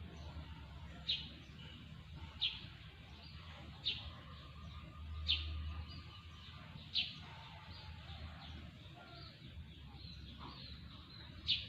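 A small bird chirping: single short, high chirps about every second and a half, five in a row, then a pause of several seconds before one more near the end, faint over a low background hum.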